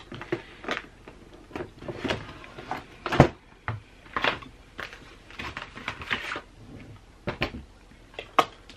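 Irregular clicks and knocks of makeup products and containers being handled and set down, the loudest about three seconds in.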